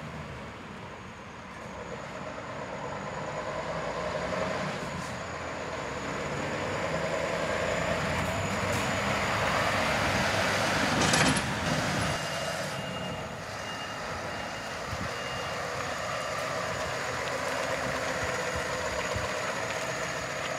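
Scania R520 truck's V8 diesel engine running as the truck drives up and manoeuvres, with a short sharp air-brake hiss about 11 seconds in, followed by a reversing beeper sounding for a few seconds.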